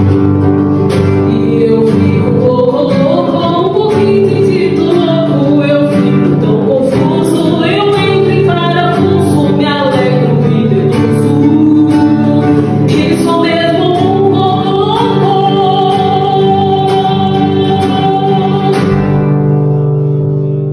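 A song with singing over acoustic guitar accompaniment.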